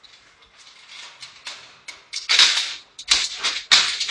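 Metal dog cage rattling and clanking: a faint scraping, then several loud metallic rattles in the last two seconds as its barred door is handled.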